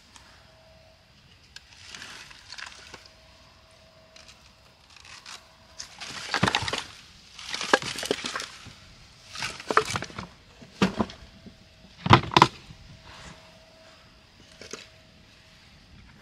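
Split firewood being pulled out of a plastic mesh bag: the bag rustles and the pieces of wood knock together, with a series of loud clunks about halfway through.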